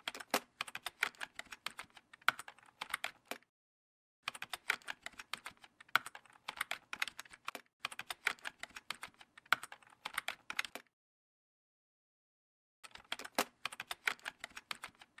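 Keyboard typing sound effect: rapid key clicks in three runs, with a pause of about a second and then a pause of about two seconds between them.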